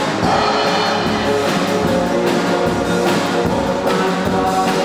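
Rock-and-roll band music with guitar and drums playing at a steady beat.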